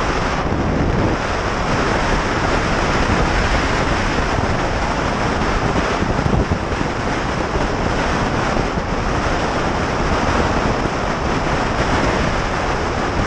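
Wind rushing over the microphone of a helmet camera on a moving motorcycle, a steady, loud wash of noise with no clear engine note standing out.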